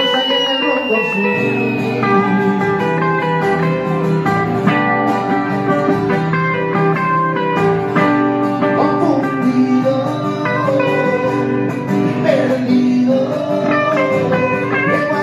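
Live acoustic rock music: guitar playing, with a voice singing.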